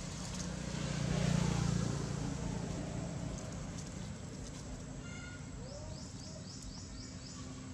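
Outdoor ambience with a swell of low rushing noise a second or two in, then a bird giving a quick run of about six high, falling chirps near the end.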